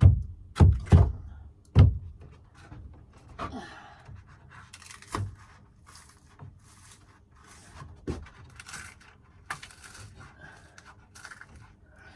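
Three or four heavy thumps in the first two seconds as a thin wooden ceiling board is knocked into place, followed by quieter scattered knocks and handling noise.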